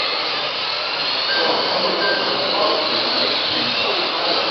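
Several electric radio-controlled Mini cars racing, heard as a steady, even whine and hiss of small motors and tyres, with a few brief thin whines rising above it.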